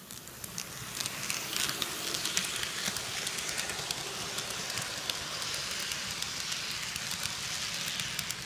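Bachmann HO-scale SD45 model locomotive and its freight cars rolling past close by on plastic-roadbed track: a steady rattling rumble with many small clicks. It swells about a second in as the train reaches the track-level microphone.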